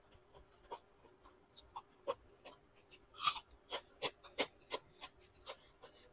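Close-miked chewing of a mouthful of rice and fish curry: a string of short wet mouth clicks and smacks, coming about two or three a second in the second half, loudest a little past the middle.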